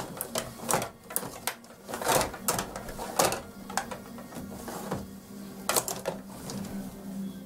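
Rod hockey game in play: irregular clacking and rattling of the control rods, plastic players and puck, with several sharper knocks.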